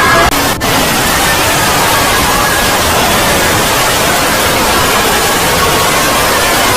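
Loud, steady static hiss, like white noise, with a brief dropout about half a second in.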